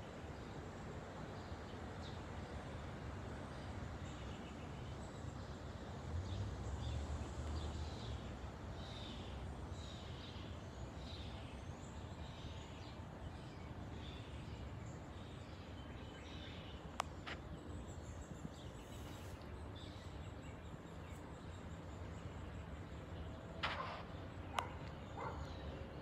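Outdoor ambience of wind in leafy trees, with small birds chirping on and off. A few sharp clicks stand out, one about two-thirds of the way through and two close together near the end.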